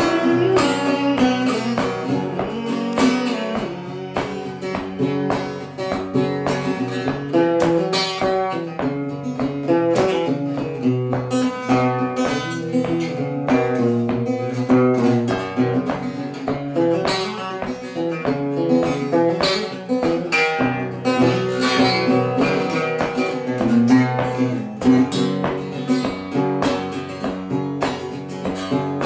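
Small-bodied acoustic guitar played solo, a run of picked melody notes over repeating bass notes.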